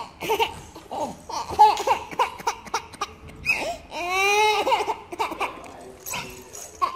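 Toddler crying: short broken cries, then one long wail about three and a half seconds in.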